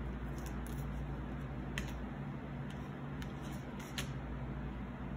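Tarot cards being handled: a handful of light, short clicks and snaps as the deck is shuffled and a card is laid down, over a steady low hum.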